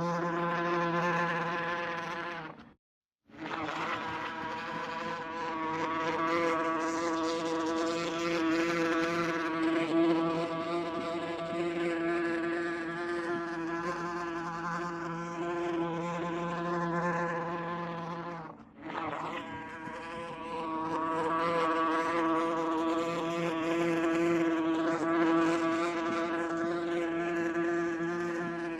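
Wasp buzzing in flight: a steady, wavering wingbeat hum. It cuts out completely for a moment about three seconds in, and dips briefly again about two-thirds of the way through.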